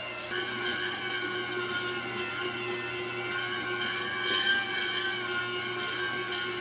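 Cabela's electric meat grinder's motor running steadily with a constant whine while grinding venison.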